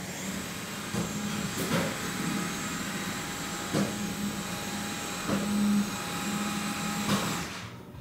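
Dyson vacuum cleaner running with a steady whine, broken by a few short knocks, and falling away shortly before the end.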